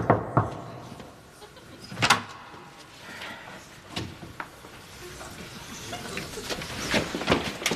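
Fist knocking on a wooden door: a few quick raps right at the start, then one more sharp knock about two seconds in, followed by scattered small clicks and rustles.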